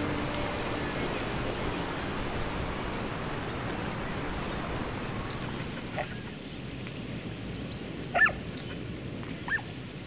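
A dog gives three short, high yelps over a steady rushing background noise that eases off about six seconds in; the second yelp is the loudest.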